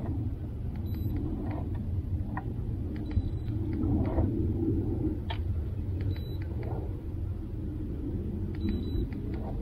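Steady low rumble with a hum from the boat's electric trolling motor, holding the boat in place over the fish.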